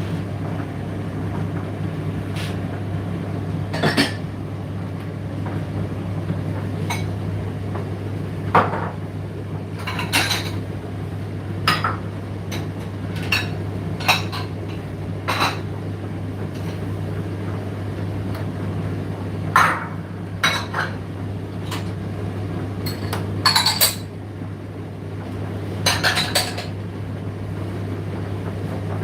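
Indesit IDC8T3 condenser tumble dryer running: a steady motor and fan hum, with irregular clinks and knocks every second or two as the load tumbles against the drum.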